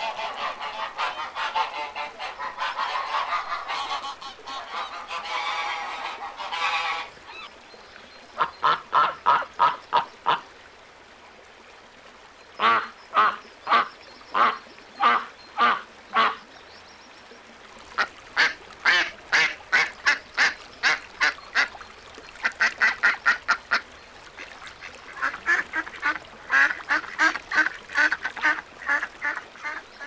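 Ducks quacking. For the first several seconds many ducks call at once in an overlapping chatter. After that come runs of loud quacks, three or so a second, in series of about seven to twelve calls with short pauses between them.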